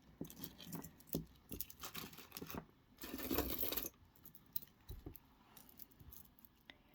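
Beads of a broken beaded necklace clicking and clinking as they are handled, a string of small irregular ticks, with a short rustle about three seconds in.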